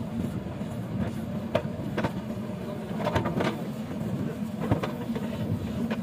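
JCB backhoe loader's diesel engine running steadily under load while the backhoe digs, with a few sharp clanks from the bucket and arm.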